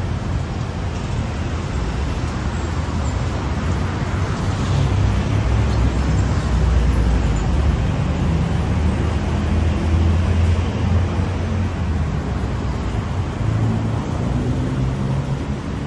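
Road traffic running steadily: a constant low rumble of car and bus engines with tyre noise, and no single event standing out.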